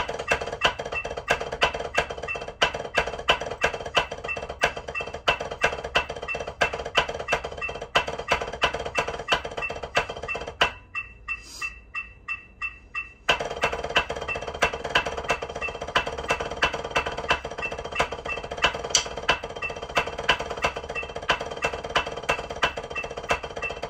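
Drumsticks playing fast, even strokes on a rubber drum practice pad against a metronome clicking at 180 beats per minute. About ten seconds in the strokes stop for two and a half seconds, leaving only the metronome clicks, then start again.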